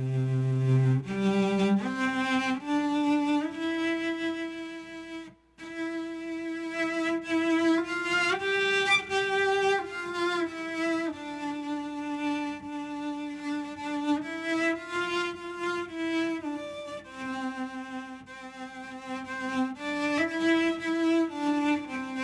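A sampled solo bowed-string instrument played live from a keyboard controller, practising slow back-and-forth bow strokes. It plays a single melodic line of held notes that slide from one to the next with a light vibrato, with a short break about five seconds in.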